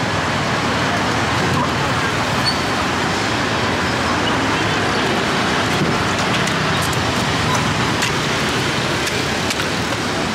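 Steady road traffic noise, an even hiss of passing vehicles, with a few faint clicks now and then.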